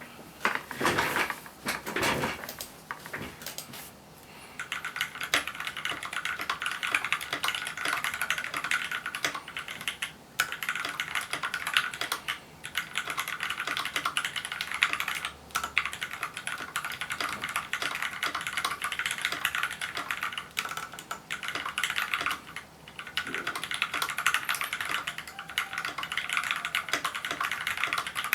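Typing on a custom 65% mechanical keyboard with lubed and filmed Gateron Milky Yellow linear switches on a brass plate in an aluminium case, with doubleshot ABS keycaps. A few separate keystrokes at first, then fast continuous typing with brief pauses.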